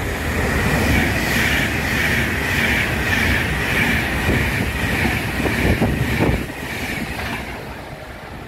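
Class 390 Pendolino electric multiple unit passing through at speed: a steady rush of wheel-on-rail and air noise that peaks about a second in and holds, with a few sharp clacks about six seconds in, then fades as the train goes away.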